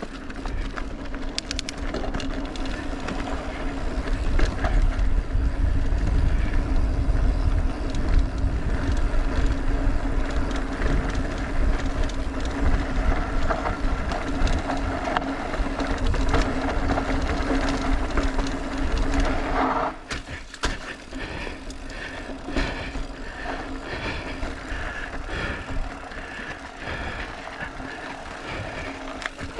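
Mountain bike riding downhill over rock and dirt: heavy wind rush on the camera microphone, tyres and frame rattling over the rough trail, with a steady hum underneath. The wind rush eases about two-thirds of the way through, leaving more clattering and rattling.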